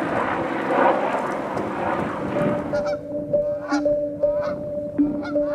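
A steady rushing noise that cuts off about halfway through, giving way to geese honking: a string of short, repeated honks over a steady low tone.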